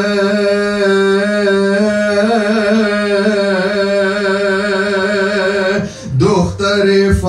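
Male voice chanting a mourning elegy, drawing out one long wavering note over a steady drone, with a short break about six seconds in before the next phrase starts.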